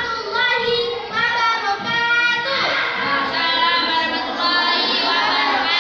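A child singing, with held notes that slide up and down in pitch.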